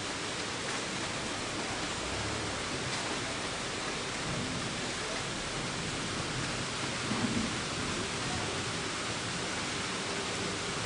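Steady hiss of rain falling, with a faint low rumble in the middle.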